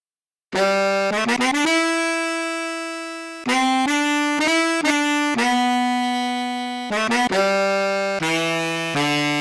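Sampled saxophone from an SF2 soundfont playing a short phrase: starting about half a second in, a quick rising run of short notes into a held note that fades away, then a few short notes and further held notes.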